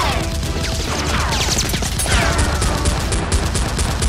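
Rapid gunfire sound effects dubbed over a Nerf blaster fight, about six to eight shots a second, with falling whizzing ricochet sounds in the first half and again around two seconds in.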